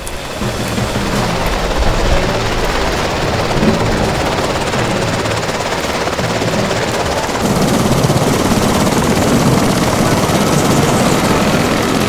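Steady helicopter running noise, a loud dense drone with a low rumble under it, starting suddenly.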